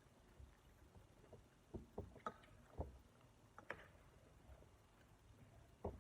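Faint, scattered light clicks and knocks, about six over a few seconds, over near silence.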